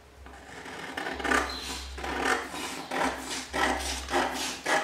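Scissors cutting along the edge of a paper sheet: a run of short, crisp snips, about two or three a second, starting faint and growing louder after the first second.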